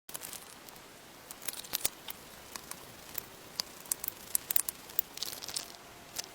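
Plastic packaging crinkling and rustling as it is handled, with many irregular sharp clicks.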